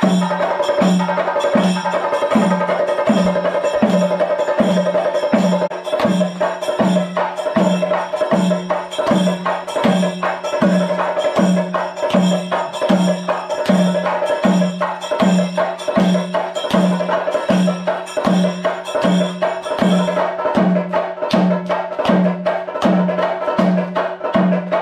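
Kerala temple percussion, likely chenda drums: a steady low drum beat of about one and a half strokes a second under dense, rapid stick clicks, over a held steady tone.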